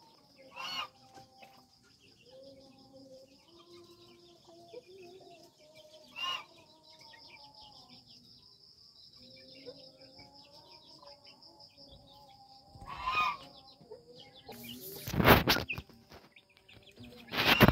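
Bangkok game rooster in a wooden coop giving three short, separate clucks several seconds apart. Near the end come two loud bursts of rustling and knocking, the loudest sounds here.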